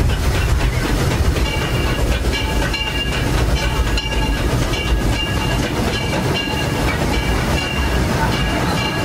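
Disneyland Railroad's narrow-gauge steam locomotive and train running along the track: a steady rumble of wheels on rails. A high-pitched squeal comes and goes from about a second and a half in.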